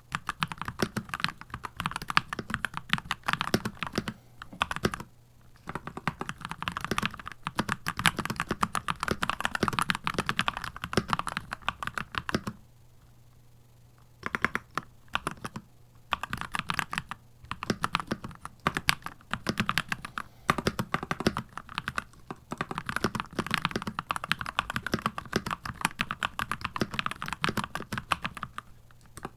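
Keychron C2 Pro 8K mechanical keyboard being typed on in fast runs of keystrokes, with brief pauses. The longest pause comes about halfway through.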